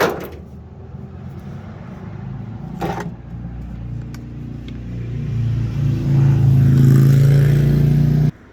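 A car engine running and revving up, growing louder over the last few seconds before cutting off suddenly, with a sharp knock at the start and another about three seconds in.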